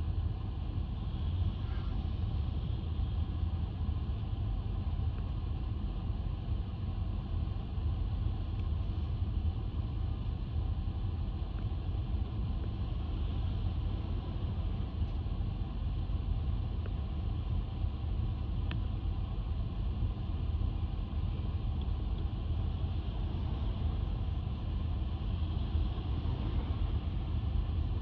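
Steady low rumble of city street traffic, with a few faint swells of passing vehicles and one brief click about two-thirds of the way through.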